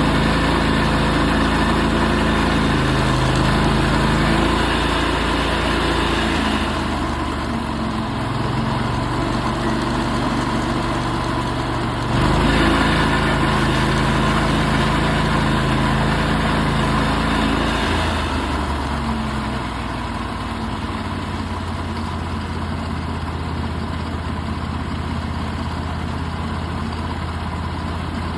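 Portable sawmill's engine running steadily while milling a walnut log. Its note changes about six seconds in, again about twelve seconds in, and once more after eighteen seconds, when it becomes a little quieter.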